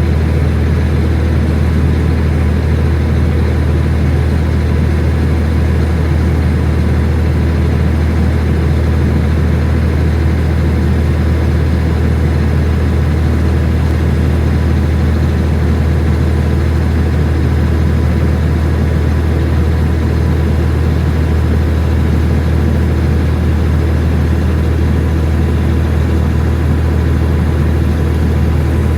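Heavy farm diesel engine running steadily at constant speed: a loud, deep, unchanging drone with a faint steady whine above it.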